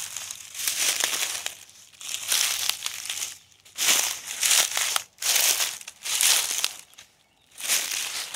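Footsteps crunching through dry fallen leaves, about one step a second.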